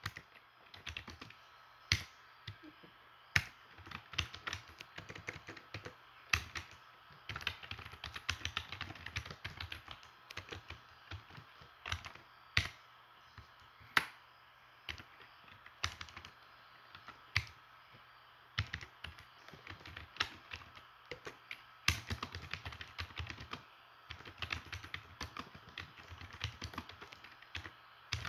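Typing on a computer keyboard in uneven runs of quick keystrokes, with single, sharper key strikes every second or two between the runs.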